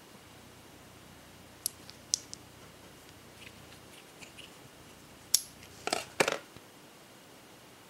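Steel-cased 7.62x39 cartridges clicking against each other and the ammunition box as they are handled: a few light clicks about two seconds in, faint ticks, then three sharper clicks between five and six and a half seconds in.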